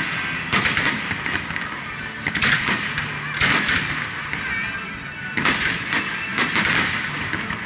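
Fireworks display: aerial shells bursting about five times, one to two seconds apart, with crackling between the bangs.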